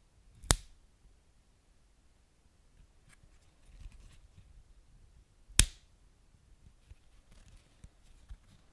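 Wood fire crackling softly, with two sharp loud pops from the burning logs, one just after the start and another about five seconds later.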